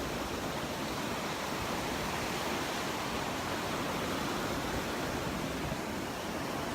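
Gulf of Mexico surf washing onto the beach, a steady rushing noise.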